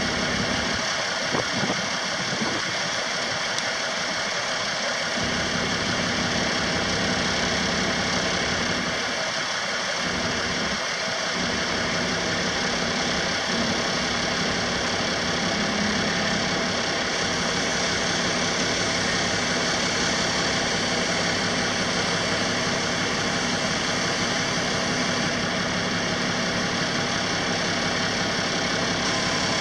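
Six-cylinder diesel engine of a 1982 International S1954 bucket truck running steadily at idle, with no change in speed.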